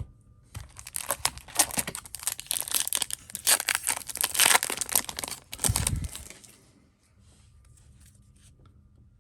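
Foil wrapper of a hockey trading-card pack being torn open and crinkled, with a dull thump about six seconds in; the crinkling stops after about six and a half seconds.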